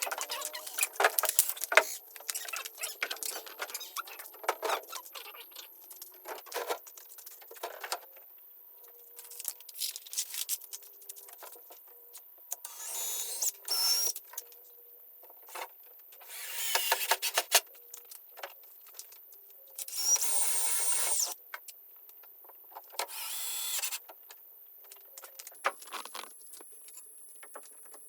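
Building work: a scattered clatter of knocks and clicks, broken by four short noisy bursts of a small power tool lasting about a second each.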